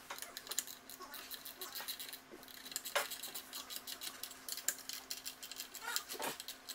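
Light, rapid metallic clicking and tapping as bolts and parts are handled on a turbocharger's compressor housing, with a sharper click about three seconds in.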